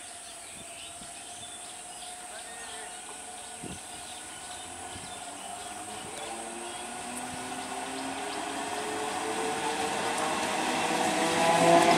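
Conventional electric multiple unit commuter train approaching, its running noise growing steadily louder. Over the last few seconds, several whining tones from its electric motors rise in pitch as it nears.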